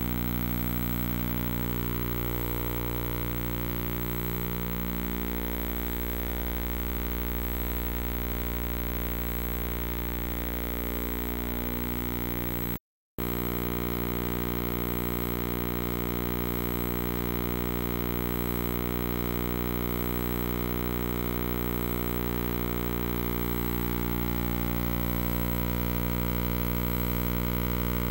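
Steady electrical buzz: a low mains hum with a long stack of overtones, unchanging, that cuts out for a split second about 13 seconds in.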